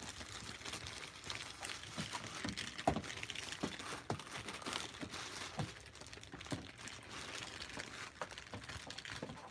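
Clear plastic wrapping crinkling as a packed figure's wrapped parts are handled, in irregular small crackles with a sharper click about three seconds in.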